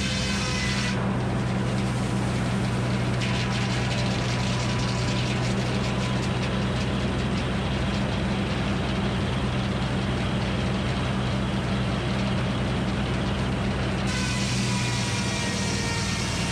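A Frick circular sawmill blade sawing through red oak boards for about thirteen seconds, starting about a second in, over the steady low hum of the mill's power unit. Before and after the cut, the blade spins free with a steady high ring.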